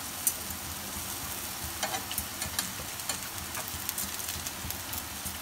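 Buttered bread slices sizzling on a hot ridged grill pan, a steady hiss with scattered small crackles, as the second side toasts.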